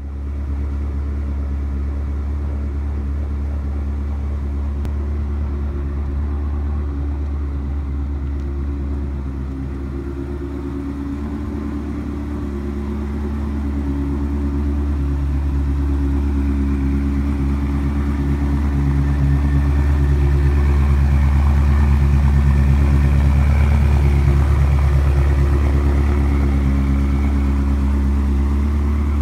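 Ferrari 360 Modena's 3.6-litre V8 idling steadily, growing louder about halfway through.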